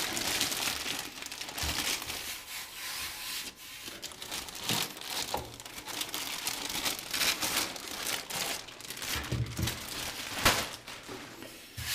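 Packaging crinkling and rustling as hands unwrap a boxed PC test bench, with scattered clicks and one sharper knock near the end.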